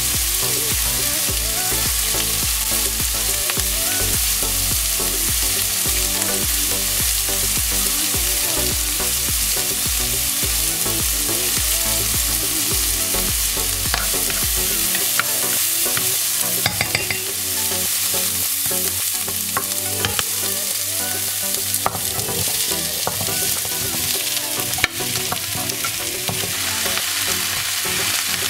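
Chopped onions frying and sizzling in oil in a nonstick pot, stirred with a spatula; later, cubed potato, carrot and kohlrabi sizzle and are stirred. A few sharp clicks come in the second half.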